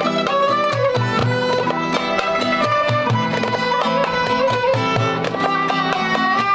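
Traditional Uzbek folk music from a small ensemble. A bowed spike fiddle carries a sliding melody over a plucked long-necked lute, an acoustic guitar and a steady hand-drum beat.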